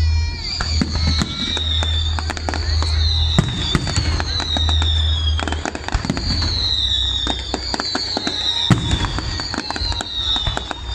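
Fireworks display: shells bursting in a dense run of bangs and crackles, with a high falling whistle repeating about once a second over them and a low rumble that fades out about halfway through.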